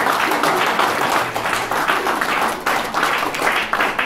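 Applause from a room of people clapping, dense and loud.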